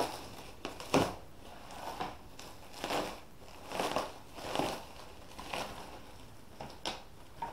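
New Flexmo underarm crutches being handled and shifted about: a string of irregular knocks, clicks and crackles of their metal and plastic parts, roughly one a second.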